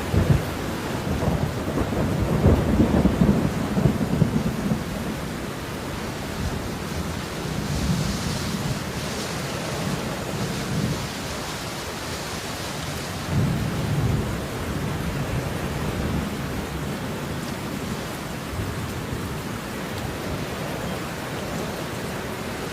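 Steady rainfall, with low rumbles of thunder that swell in the first few seconds and again a little past the middle. A brighter hiss of rain comes up for a few seconds in between.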